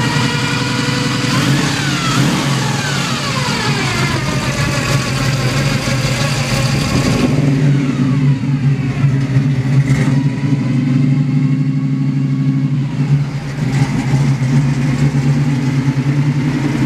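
Chevrolet 350 small-block V8 with headers and a 2.5-inch Flowmaster exhaust running and revving up and down. A high whine from its gear-drive timing set rises and falls with the revs.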